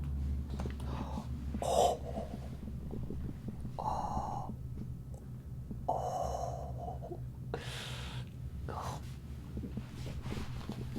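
A man breathing heavily and gasping while his back is walked on in a Thai massage: several loud breaths a second or two apart, over a low steady hum.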